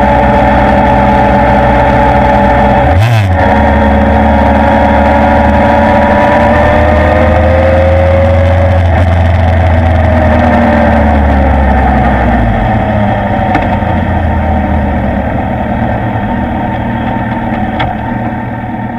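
Suzuki inline-four motorcycle engine running under way, its pitch gliding slowly as the revs change, with a short break in the low rumble about three seconds in. Over the last several seconds it gets steadily quieter as the bike slows.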